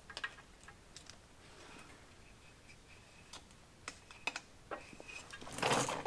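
Scattered light clicks and taps of small parts being handled and fitted on the outdrive, then a louder scraping rustle near the end, closing on a sharp knock.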